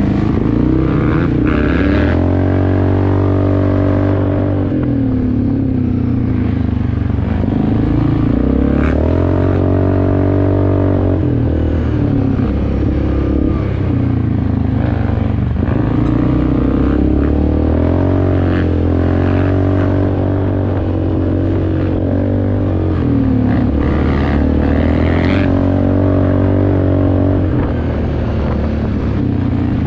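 Yamaha Grizzly 400 ATV's engine running on a dirt trail, its pitch rising and falling every few seconds as the throttle is opened and eased off, with occasional brief rattles.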